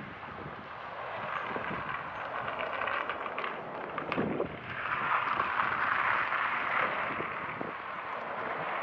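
A car driving past on the paved street, its tyre noise swelling about five seconds in and fading again, over general street noise.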